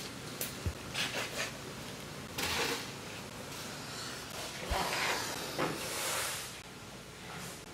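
Rustling and scuffing handling noises in a few short bursts, with light clicks near the start.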